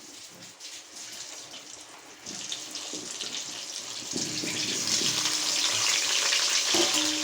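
Potato pieces frying in hot oil with turmeric and salt, a steady sizzle that grows louder about two seconds in and again about four seconds in as the potatoes go into the pan.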